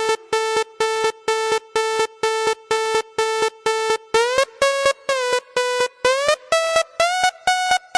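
Electronic dance music intro: a bright, buzzy synth lead plays short repeated notes about twice a second, holding one pitch for the first half, then gliding up and down to new notes.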